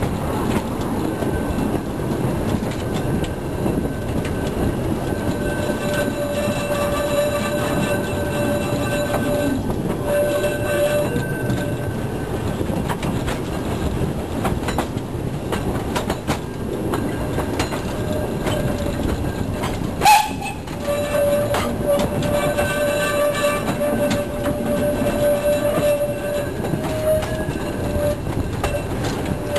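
Kerr Stuart Wren-type narrow-gauge steam locomotive running along the track, heard from its footplate as a loud, steady rumble and rush. A high squealing tone comes and goes over it, and a single sharp knock stands out about twenty seconds in.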